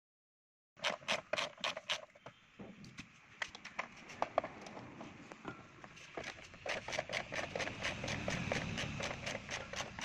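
Sharp clicks and knocks from hands working on the washing machine's clutch assembly, starting about a second in. They come fast at first, about six a second, then turn irregular over a background hiss that grows louder.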